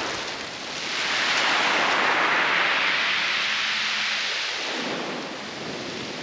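A wave washing up a shingle beach. The rushing hiss of water through the pebbles swells about a second in, holds, and fades away after about five seconds.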